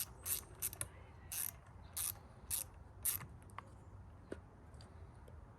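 Ratchet wrench clicking through short strokes, about one every half second, as the bolts holding the pump's cover plate are tightened down onto its new gasket. The strokes stop after about three seconds, leaving a few faint ticks.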